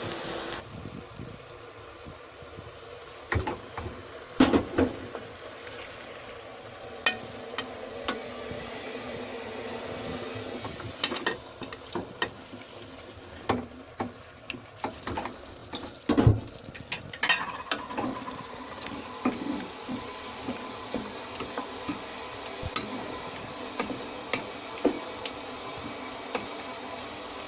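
A spoon stirring in a cooking pot, with scattered clinks and knocks against the pot over a steady sizzle, as spices are worked into onion fried in oil.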